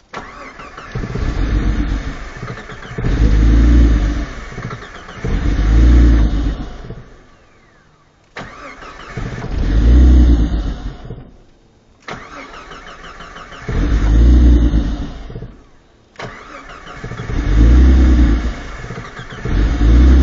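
Jeep Cherokee engine cranked about four times in a row: each attempt fires in loud surges that rise and die away without ever catching to run. It is a no-start after the engine was submerged, with water drained from its ECU.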